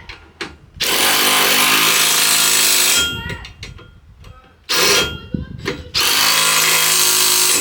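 Power tool running up bolts tight: two steady runs of a couple of seconds each, with a short blip between them.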